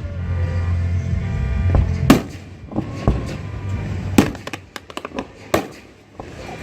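Fireworks exploding over music: the music holds steady chords at first, then sharp fireworks bangs go off about two seconds in, again around four seconds and five and a half seconds, with smaller pops between.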